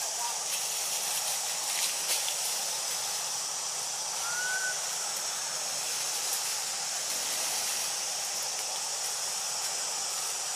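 Steady high-pitched hiss of forest ambience, with one short rising whistled bird call about four and a half seconds in.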